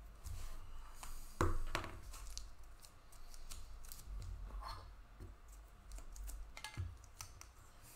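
Clear plastic crinkling and clicking as a trading card in a hard plastic holder and sleeve is handled. The loudest click comes about one and a half seconds in, followed by a few fainter ones.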